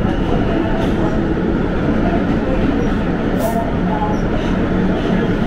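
Inside an R160 subway car pulling out of a station into the tunnel: a steady, loud rumble of wheels on rail and running gear, with a brief high hiss about three and a half seconds in.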